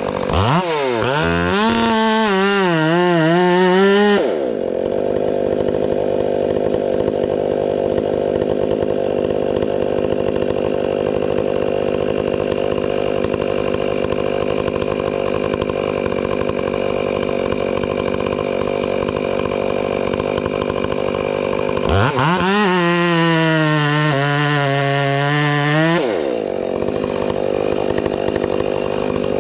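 Gas chainsaw revving at full throttle for about four seconds, its pitch dipping and wavering, then dropping to a steady idle. About twenty-two seconds in it revs up again for some four seconds, wavering, and falls back to idle.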